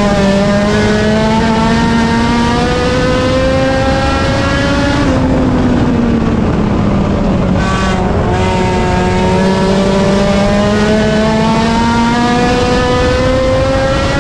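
Race car engine under hard throttle, its pitch climbing steadily for about five seconds, then falling as the driver lifts, and climbing again after a brief lift about eight seconds in.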